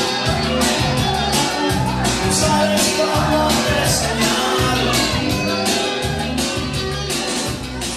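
Loud party music with singing and a steady beat, played over a DJ sound system, easing off a little near the end.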